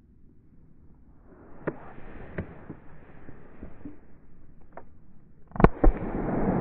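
Rustling with a few small clicks, then a 20-gauge over-and-under shotgun fires once about five and a half seconds in, with a second sharp crack a quarter of a second later, followed by a steady rustling hiss.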